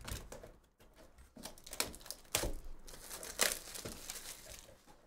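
Plastic shrink wrap being torn off a trading-card box and crinkled by hand, in irregular crackles and rips. The loudest tears come about two and a half and three and a half seconds in.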